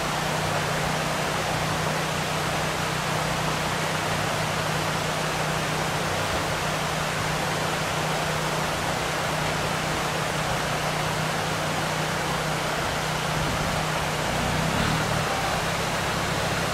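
Steady rush of shallow stream water running over rocks, with the low, steady drone of a Land Rover Discovery engine running underneath.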